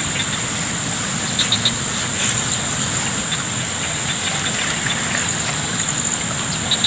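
Insects droning steadily at a high pitch over a constant noisy background, with a few short ticks now and then.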